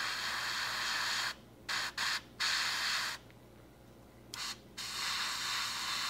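Gravity-feed airbrush spraying thinned clear red paint in bursts of hiss as the trigger is pulled and released: a long burst, two short ones, another longer one, a pause of about a second, then a longer burst near the end. These are repeated light passes to build up a translucent red coat.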